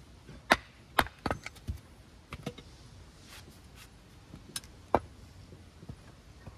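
A series of sharp, uneven knocks and clacks, about ten in all, with a pause in the middle.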